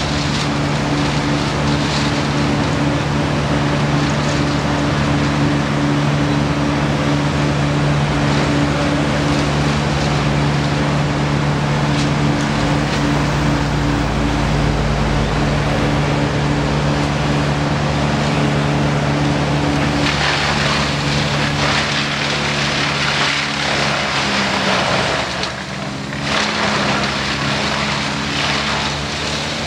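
Diesel engine of a trailer-mounted wood chipper running at a steady drone. About two-thirds of the way in a louder rushing noise joins it, and around the same time the engine note dips briefly and shifts in pitch.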